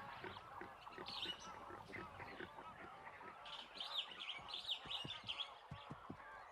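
Faint chorus of small birds chirping, with many short overlapping chirps that grow busier and higher-pitched about halfway through. A few soft low taps come through underneath.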